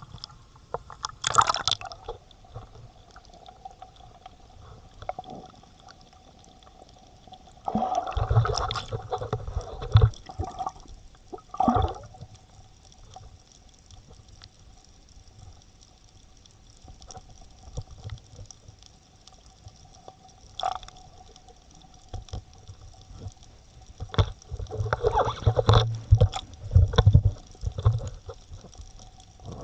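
Water sloshing and gurgling around a camera's dive housing as it moves at and under the surface, in irregular bursts: briefly near the start, for a couple of seconds about a third of the way in, and a busier stretch near the end, with quieter gaps between. Faint steady tones sit underneath throughout.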